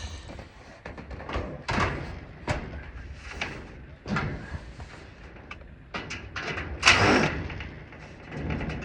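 Sheet-metal carport panels being handled during disassembly: a string of knocks and clanks, with one louder clatter about seven seconds in.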